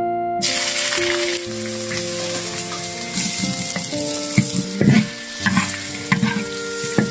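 Food hitting hot oil and sizzling loudly, starting suddenly about half a second in, with a run of knocks and scrapes of stirring in the pan in the second half. Background music plays throughout.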